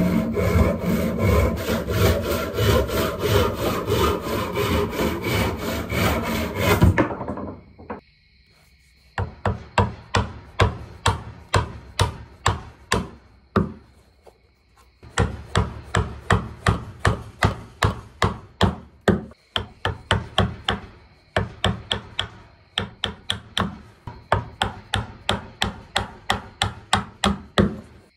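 A hand tool rubbing and scraping along a wooden handle in repeated strokes, about two a second, in runs broken by short pauses. The sound changes about a quarter of the way through, after which each stroke is sharper.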